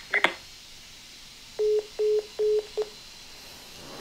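A phone's call tone: four short, evenly spaced beeps at one steady pitch, the last cut short. The call has ended.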